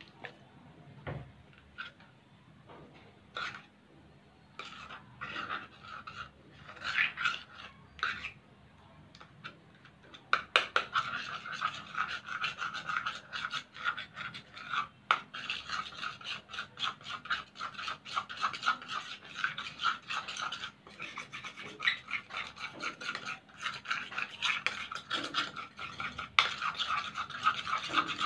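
A metal spoon stirring glue and borax activator in a bowl as it thickens into slime. Only a few scattered taps and scrapes at first, then from about ten seconds in a fast, continuous scraping and clicking.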